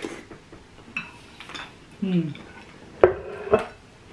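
A spoon knocking and scraping against a bowl while scooping berries and ice in coconut water. There are a few sharp clinks, the loudest two close together about three seconds in.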